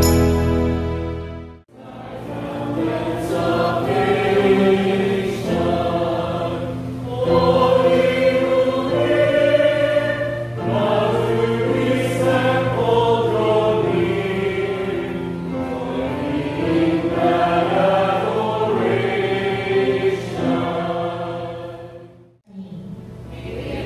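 A choir singing a slow song, with the voices' melody rising and falling. A held chord dies out just before the singing begins, and the singing ends shortly before the close.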